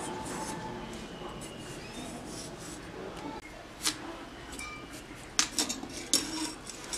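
A raw potato being peeled on a bonti, a curved fixed kitchen blade: soft scraping of the skin against the blade, with sharp scraping clicks about four seconds in and a quick cluster of them around five and a half to six seconds.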